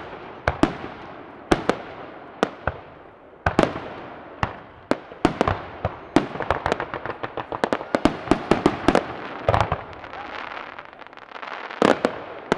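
Aerial fireworks shells bursting, a string of sharp bangs with a crackling wash between them, coming thick and fast in the middle of the stretch and again in a short cluster near the end.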